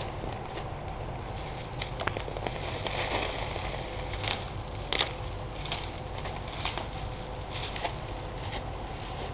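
Dry, frost-killed tomato vines crackling and snapping as they are pulled and broken out of a wire trellis, with a few sharper snaps about two, four and five seconds in.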